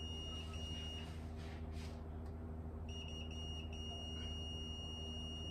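Multimeter continuity buzzer giving a steady high-pitched beep while the probes touch points on a key's circuit board. It beeps briefly twice, goes silent, then sounds again with short breaks from about three seconds in. The beep signals near-zero resistance: a short circuit of about 0.2–0.3 ohms across a capacitor.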